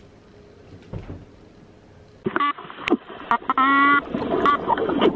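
Quiet room tone with a soft tap about a second in. Then, a little after two seconds, an edited-in meme sound clip starts, dull and low-fidelity, with wavering pitched sounds and sharp clicks.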